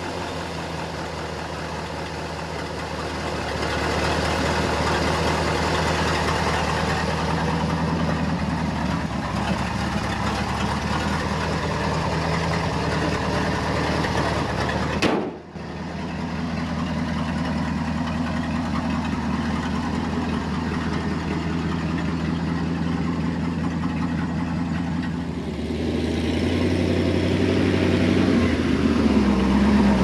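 1967 Ford F600 dump truck's engine running steadily on its new wiring harness, with a sudden break about halfway through and getting louder in the last few seconds.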